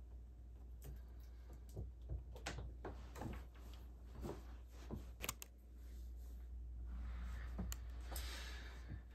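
Scattered light clicks and knocks as the glass front panel of a reptile enclosure is shut, then a brief rustling near the end.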